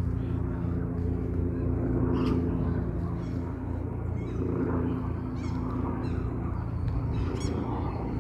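A steady low droning hum, with short bird chirps now and then.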